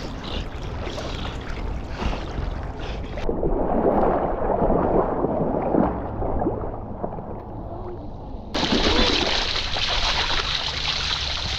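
Water splashing and sloshing around a camera mounted on a swimming dog. From about three seconds in, the sound turns muffled and gurgling as the camera dips under the water. Near eight seconds the clear splashing comes back suddenly as the dog climbs out and wades ashore.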